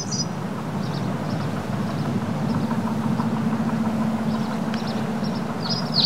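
Steady low mechanical hum over an even background noise, with a few faint bird chirps now and then.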